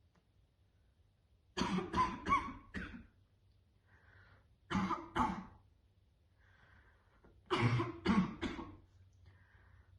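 A woman's harsh, barking smoker's cough in three fits: four coughs about a second and a half in, two more near the middle, and four more later, with faint breaths between them.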